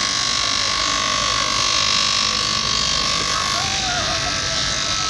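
Bench grinder running with a sandal's sole pressed against its sanding wheel: a steady grinding hiss over the motor's hum. A steady whine runs through it and shifts a little higher about four seconds in.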